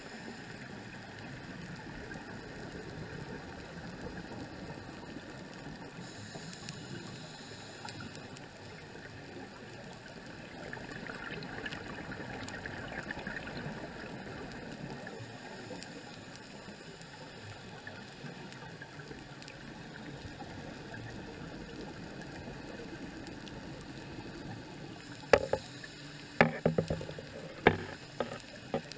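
Muffled underwater noise picked up by a scuba diver's camera, swelling for a few seconds in the middle, with several sharp clicks and knocks near the end.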